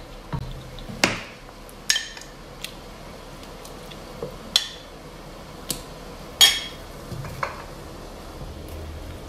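Metal spatula and spoon knocking and scraping against a steel wok as cornflour slurry is stirred into the sauce to thicken it: sharp separate clinks about once a second, the loudest about six and a half seconds in.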